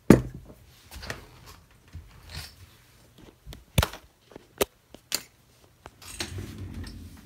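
Handling noise as the camera is picked up and moved: a thump at the start, scattered sharp clicks and knocks, and a low rustle near the end.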